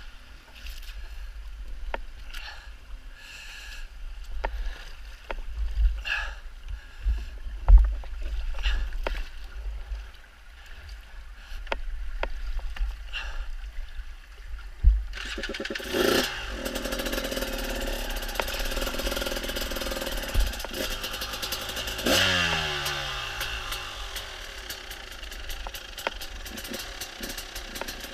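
Knocks and thumps as a fallen enduro motorcycle is handled and lifted upright on a rocky streambed. About halfway through, the bike's engine starts and keeps running, revved sharply twice with the pitch falling back after each blip.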